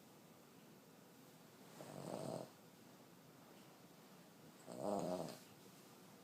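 Elderly Boston terrier snoring in her sleep: two snores about three seconds apart, the second louder.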